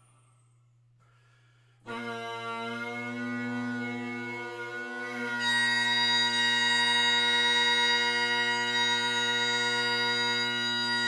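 Wallace Great Highland bagpipes striking in. After near silence the drones, with a cane bass drone reed, start about two seconds in and hold a steady low chord. Around five seconds in the P. Henderson chanter with its MUR-REED copper-staple reed joins on one held high note over the drones.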